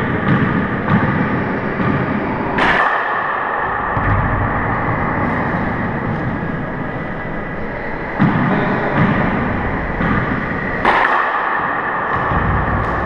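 Handball rally on an indoor four-wall court: the hard rubber ball is struck by hand and slaps off the walls and floor in a few sharp hits, each one echoing around the enclosed court.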